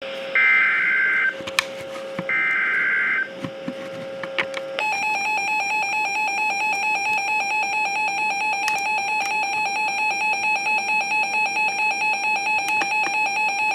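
NOAA Weather Radio emergency alert received over a weather radio. Two short bursts of screeching digital data (the SAME header) come first. From about five seconds in, the long, steady, high-pitched warning alarm tone sounds, with a few clicks of radio static; it is the signal that a warning, here a severe thunderstorm warning, follows.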